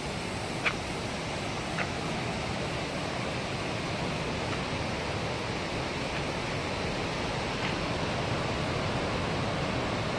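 Steady rushing of river water in a gorge, an even hiss slowly growing a little louder, with two faint ticks within the first two seconds.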